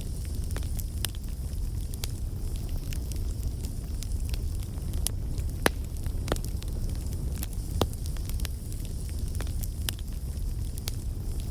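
Wood fire burning, with a steady low rumble and irregular sharp crackles and pops. The loudest pop comes a little before the middle.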